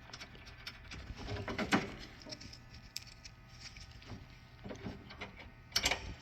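Hood-latch bolts being started and run in by hand: scattered small metallic clicks and scrapes, with a louder clatter about two seconds in and another near the end.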